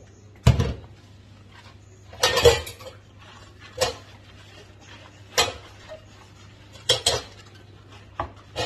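Washed stainless-steel cups and glass mugs being set down one by one into a plastic dish rack in a sink: about six separate clatters and clinks, a second or so apart.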